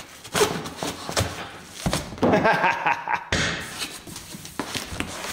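A knife slitting packing tape on a cardboard shipping box, then the box's cardboard flaps being pulled open, with scraping, scratchy tearing and knocks of cardboard. The scratchy stretch stops abruptly about three seconds in.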